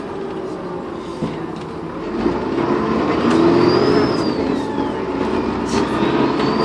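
Dennis Trident 2 bus engine pulling under acceleration, with a high turbocharger whistle that climbs, dips about five seconds in, then climbs again.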